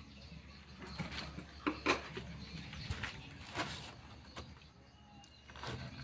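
A handful of light knocks and clicks, scattered over the first four seconds with one more near the end: a plastic chair being shifted and pruning shears set down on its seat.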